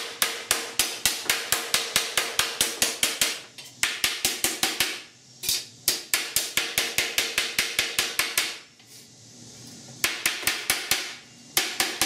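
Hand hammer striking the flange of a small sheet-steel patch panel held over the edge of a steel workbench top, in rapid blows about five a second in several runs, with a pause about nine seconds in; the metal rings faintly. The flange is being formed to roll up slightly so the patch fits its curve.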